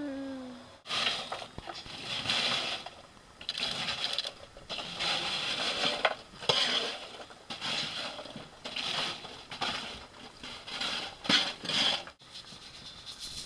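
Charcoal briquettes being raked and spread across a metal firebox with a long-handled tool: repeated irregular scraping strokes with crunching and clinking of the coals, the hot bed being levelled under a pig roast.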